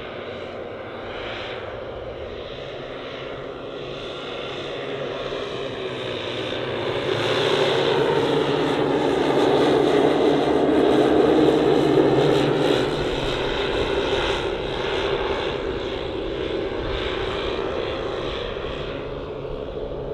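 Twelve 10 cc OS model aircraft engines with propellers running together on a 1:10 scale Dornier Do X flying boat model in flight, growing louder as it passes close about eight to thirteen seconds in, then fading away.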